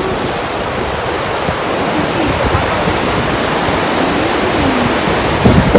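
The fast-flowing Rhine rushing over rapids at the Rhine Falls: a steady, loud whitewater rush with no break.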